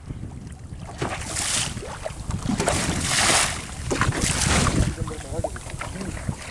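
Sea waves splashing and washing against the side of a small boat, in three hissing surges, over a steady rumble of wind on the microphone.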